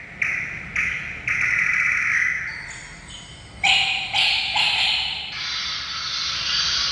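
Recorded forest wildlife sounds. A run of short buzzy calls with sudden starts, about two a second, gives way about three and a half seconds in to a louder call, then to a steady high hiss like an insect chorus from about five seconds on.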